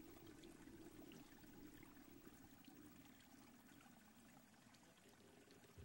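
Near silence: faint, steady room tone with a low hiss.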